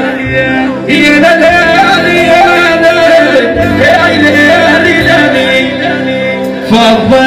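Live band music: a man sings a wavering melody into a microphone over keyboard synthesizer and drums.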